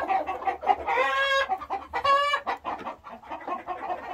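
A noisy flock of chickens clucking, with short loud squawking calls about one and two seconds in.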